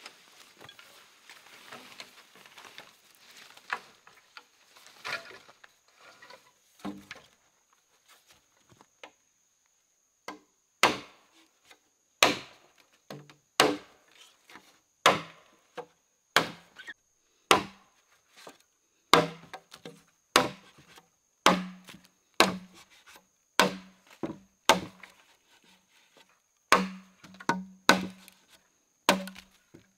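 Rustling and shuffling in undergrowth with a few light knocks, then from about ten seconds in, steady chopping blows into wood, roughly one a second, each sharp with a short dull ring.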